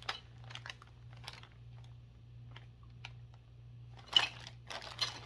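Plastic model-kit parts and their bags being handled: scattered light clicks and crinkling, busier near the end. A steady low hum runs underneath.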